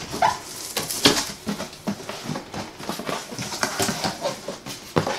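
Cardboard monitor box being opened by hand: the lid and flaps scraping, rustling and knocking in an irregular run of short noises.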